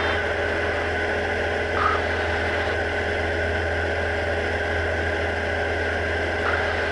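Diamond DA40 single-engine light aircraft's engine and propeller droning steadily in flight, heard inside the cabin.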